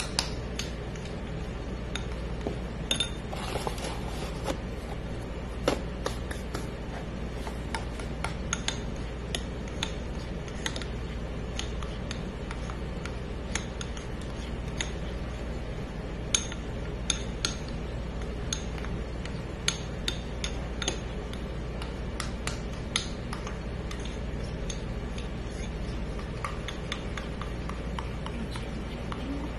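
A spoon clinking and scraping against a bowl while stirring, with irregular sharp clinks over a steady low hum.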